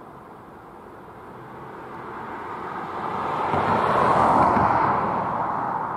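A vehicle passes close by: a noisy rush that swells to a peak about four seconds in, then fades.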